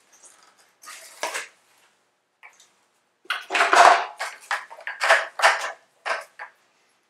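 Hollow PVC pipe pieces and tee fittings knocking and scraping against each other as they are pushed together, in a handful of short, irregular clatters.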